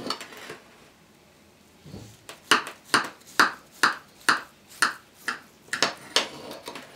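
Knife cutting a slice from a soft walnut-topped apple pie, the blade knocking against the plate beneath: a regular run of about ten sharp clicks, roughly two a second, starting about two seconds in.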